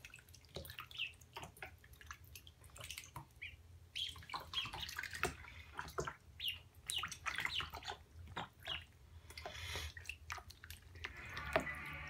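Days-old domestic ducklings (Pekin, Khaki Campbell and others) peeping in short high calls while they paddle in shallow bathwater, with small splashes and drips.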